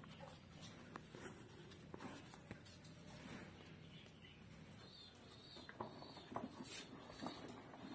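Faint scraping and small scattered clicks of a loaded toy truck rolling across a concrete floor.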